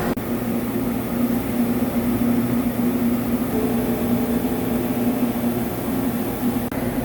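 CNC vertical lathe running, a steady machine hum with a strong low drone. Two very brief dropouts break it, just after the start and near the end.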